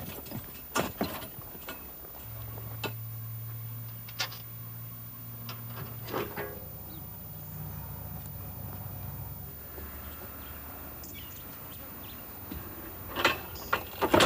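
Scattered knocks and clatter of a horse-drawn cart being tipped and its load of rubbish sacks and cardboard dumped onto a heap, with a low steady hum through the middle and a louder burst of clatter near the end.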